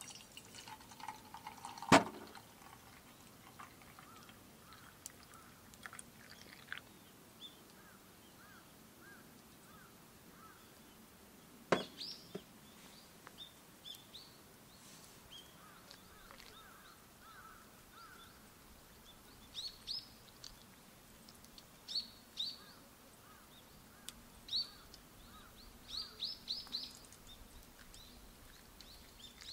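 Small birds chirping and calling, with short high chirps coming more often in the second half. Two sharp knocks, about two seconds in and again near the middle, are the loudest sounds.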